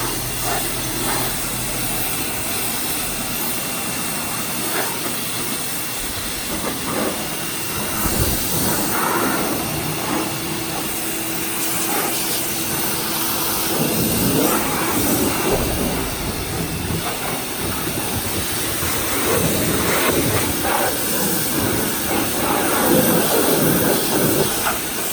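Stanley 2050 PSI electric pressure washer spraying a jet of water against a vehicle's body: a steady loud hiss with splashing that changes as the spray moves over the surface.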